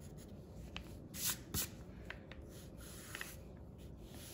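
Wooden pencil sketching on drawing paper: a few short, faint scratching strokes, the loudest about a second and a half in.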